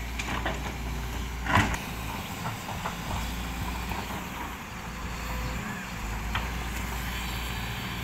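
SANY hydraulic excavator's diesel engine running steadily as it works in mud, with a few knocks, the loudest about a second and a half in.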